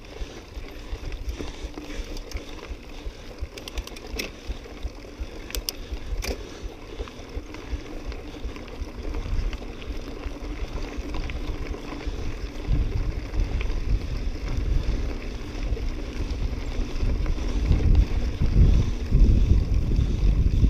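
Cross-country mountain bike riding uphill over loose gravel and stones, heard from a handlebar-mounted camera: a continuous crunch and rattle of tyres and frame. A few sharp clicks come around four to six seconds in, and a low rumble grows louder over the last several seconds.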